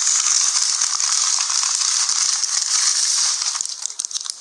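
A sudden loud burst of hissing, crackling noise that cuts in at once, holds steady for about three and a half seconds, then breaks up into scattered crackles.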